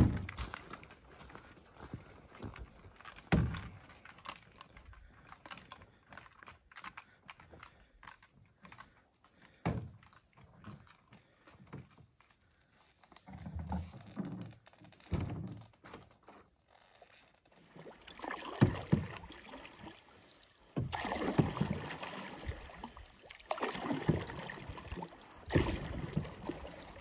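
Scattered knocks, footfalls and a few dull thumps as a canoe is carried along a portage trail and set down at the water. After that come rough, repeated surges of paddle strokes and water as the canoe is paddled across a lake.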